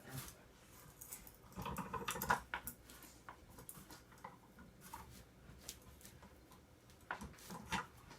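Light clicks and knocks of metal lamp parts being handled and twisted by hand while trying to unscrew a nut, in scattered groups of sharp ticks.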